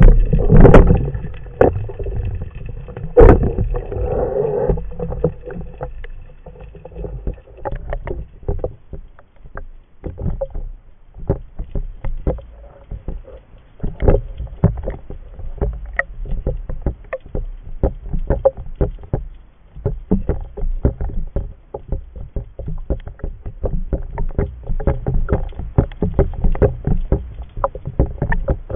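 Seawater sloshing and splashing against a speargun-mounted camera's waterproof housing at the surface, with a continual crackle of small clicks. A low rumble fills the first few seconds, and a single knock comes about three seconds in.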